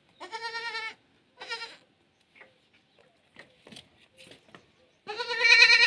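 Goat bleating three times: two short bleats at the start, then a louder, longer bleat near the end, with faint scuffling clicks in between.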